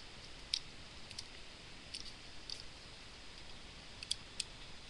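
Hinged plastic parts of a Bakugan toy clicking as it is worked in the fingers: about half a dozen small, sharp clicks at uneven intervals, the loudest about half a second in and two in quick succession near the end.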